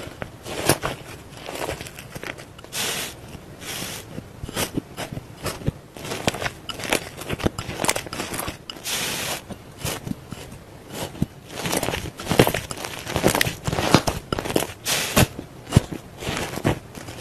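Thick slime being poked, squeezed and folded by hand in a glass bowl: a steady run of sticky crackles, small pops and squelches, growing denser near the end.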